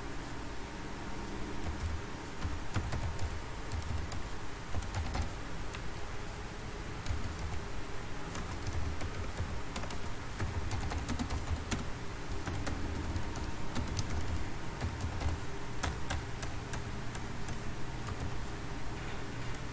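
Computer keyboard being typed on in short, irregular runs of keystrokes, over a steady low background hum.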